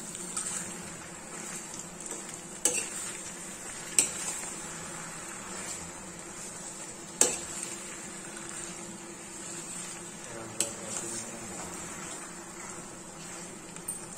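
Metal spatula stirring macaroni in a kadhai, scraping through the pasta and knocking sharply against the pan about five times at uneven intervals, over a faint sizzle of frying.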